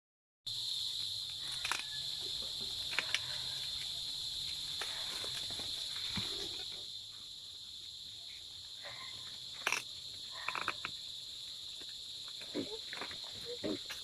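Steady high-pitched drone of insects in a cornfield, with scattered rustles and snaps of dry corn leaves and husks as ears are picked.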